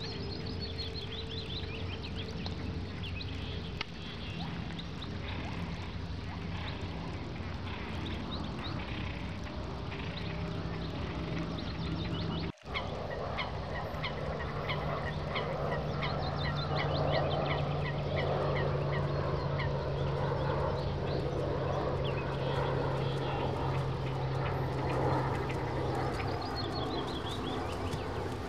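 Birds calling in quick repeated runs over a steady low hum, with a brief break about twelve seconds in.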